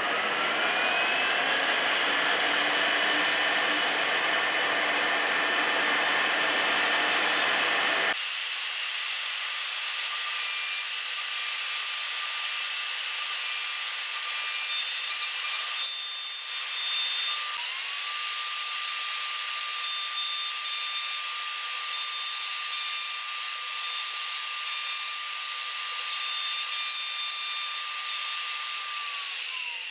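Overhead router spindle running with a steady high whine while a 12 mm bit mills a slot into a curved wooden piece. The whine dips and picks up again a little past halfway, and winds down near the end.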